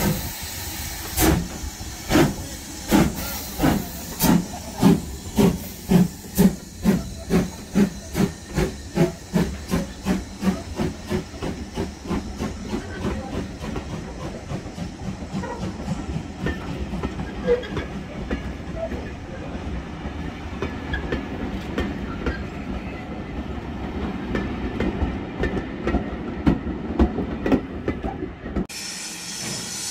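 Ivatt Class 2MT 2-6-2 tank locomotive No 41241 pulling away from a standstill: its exhaust beats start about a second apart and quicken as it gathers speed, then fade. The coaches roll past with a steady rumble of wheels on rail. Near the end the sound cuts abruptly to a steady hiss.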